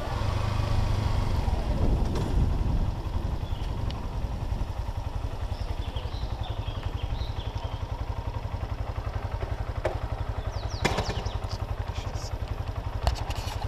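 Motorcycle engine running as the bike is ridden along a street, a steady low rumble that settles into an even pulse at low revs a few seconds in. There are a few clicks and knocks near the end.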